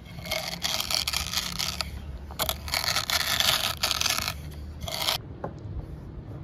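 Wooden rolling pin rolled back and forth over whole seeds and chili flakes on a flat stone slab, crushing them with a gritty scraping in several strokes. The scraping stops about five seconds in.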